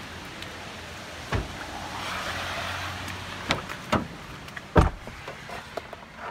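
Steady hiss of heavy rain, with the knocks and thumps of a Toyota pickup's doors being opened and shut as people climb in; the loudest, deepest thump comes about five seconds in.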